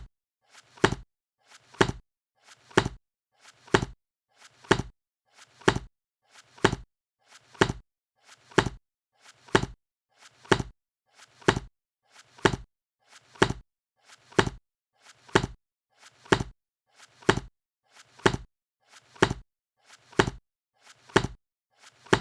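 A book being shut again and again, about once a second: each closing is a soft brief rustle followed by a sharp slap of the covers.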